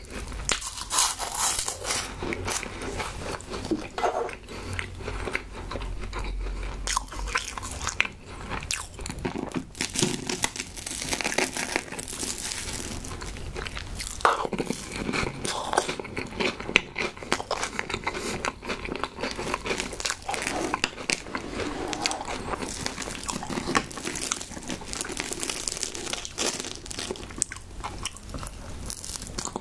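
Close-miked eating: crisp oven-baked Home Run Ball choux puffs being bitten and chewed with many irregular crunches, and later mouthfuls of gooey toasted-marshmallow s'mores dip taken from a fork.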